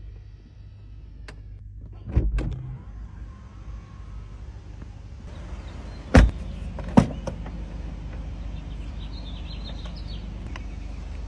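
A car's doors and trim working: a pair of heavy thumps about two seconds in, then two sharp clunks about a second apart, over a steady low mechanical hum.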